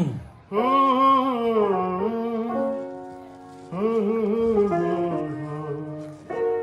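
A solo voice singing a wordless, drawn-out melodic phrase with vibrato, twice: once from about half a second in and again from near four seconds, each phrase sliding down in pitch as it fades.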